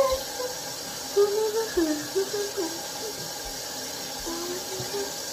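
Bathroom faucet running steadily into the sink while a face is rinsed under it, with a few short wordless bits of a girl's voice over the water.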